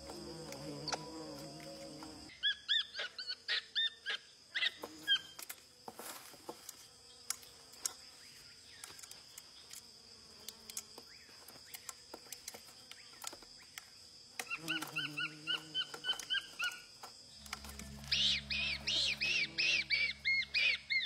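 Capuchin monkey calling: rows of short, high-pitched chirping squeals, one run a couple of seconds in, another past the middle and the loudest near the end, over soft background music.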